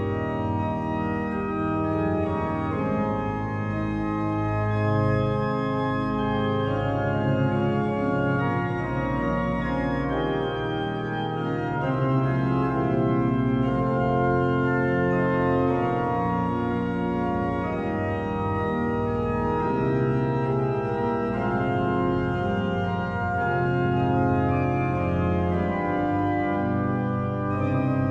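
The 1774 Jean-Esprit Isnard pipe organ playing a Baroque Fond d'orgue in G minor on its foundation flue stops: slow, full, sustained chords over a steady bass line.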